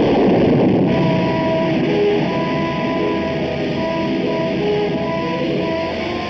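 X-15 rocket plane exploding on the test stand during an XLR-99 engine ground run: a sudden loud blast, then a sustained roar with a few held tones coming and going over it. The blast comes from a ruptured hydrogen peroxide tank, not from the engine itself.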